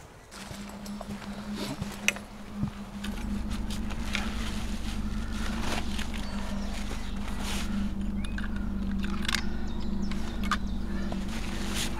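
Rustling fabric and sharp clicks as a padded unhooking mat is unfolded and set into a fabric carp cradle, over a steady low motor hum that starts just after the beginning and grows fuller about three seconds in.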